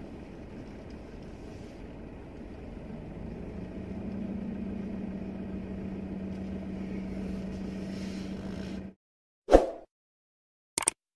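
Car engine and road noise heard from inside the cabin while driving slowly, with a steady engine hum that grows a little louder about three seconds in. The sound cuts off sharply about nine seconds in, followed by a single loud sound-effect hit and a brief click near the end.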